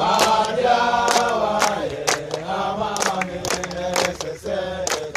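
A team of young male footballers singing a chant together, clapping their hands to a steady beat of about two claps a second.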